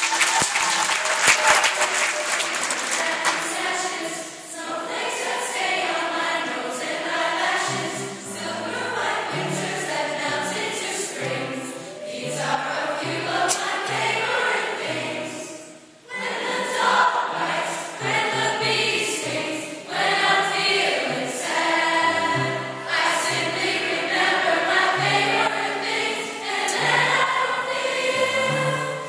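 Large choir of young voices singing together with piano accompaniment, with a brief pause between phrases about halfway through.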